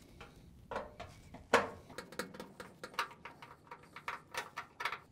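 Irregular light clicks and scrapes of a Phillips screwdriver and gloved hand working against a front-load washer's sheet-metal front panel while bottom screws are taken out, with one sharper knock about one and a half seconds in.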